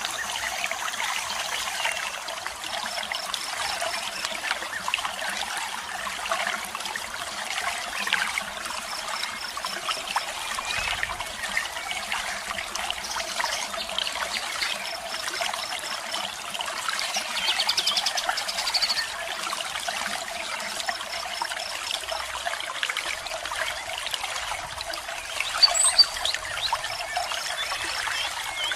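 Waterfall running with a steady trickling, splashing hiss, while small birds give short high chirping trills every few seconds. A louder chirp comes near the end.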